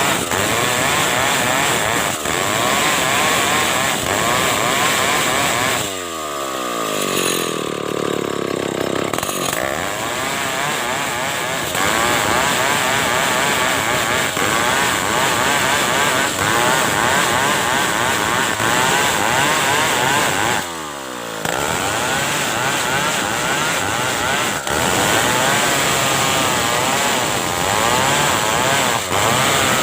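Stihl chainsaw running at high revs, ripping a big ulin (ironwood) log into planks, its pitch wavering under load. About six seconds in it drops back to idle, then revs up again a few seconds later, and it dips briefly once more about two-thirds of the way through.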